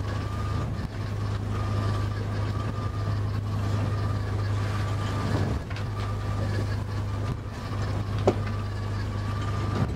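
Boat engine droning steadily as heard from inside the wheelhouse while the boat runs through a choppy sea, with a faint wavering whine over the drone and a single sharp knock about eight seconds in.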